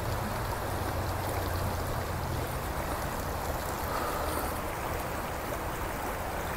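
A river rushing over rocks in shallow rapids: a steady, even rush of water.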